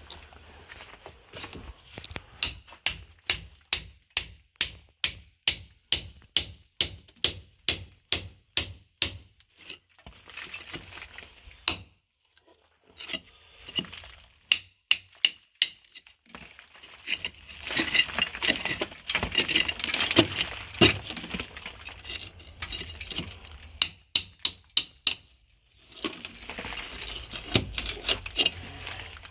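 Hand tool striking a cob wall: evenly spaced hammer blows about two a second for several seconds, then a few scattered blows and stretches of scraping and crumbling as the earthen material is broken away.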